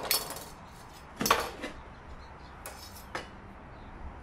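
Large kitchen knife cutting the core out of a pineapple on a plastic cutting board: four short knocks and scrapes of the blade on the board, irregularly spaced, the loudest about a second in.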